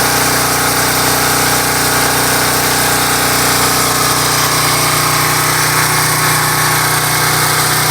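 Generator engine running steadily with an even drone, loaded by an air conditioner.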